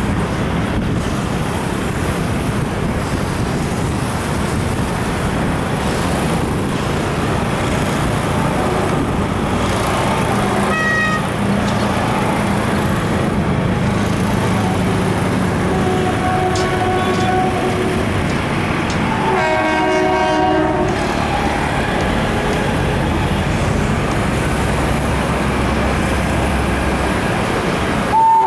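Indian Railways WAP4 electric locomotive approaching with its train, sounding its horn in several short blasts about ten, sixteen and twenty seconds in, the last the loudest. Under the horn there is a steady rumble and hiss.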